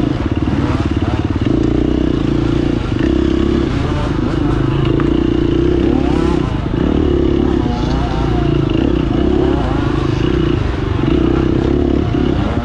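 Dirt bike engine running hard under the rider, the throttle rolled off briefly and opened again several times, with clatter from the bike over rough off-road trail.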